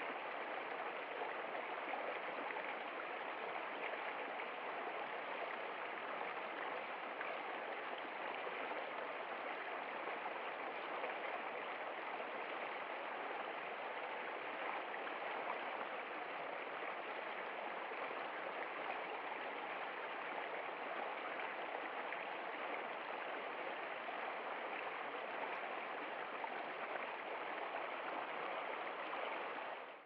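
Small stream of water running and splashing over rocks: a steady, even rush.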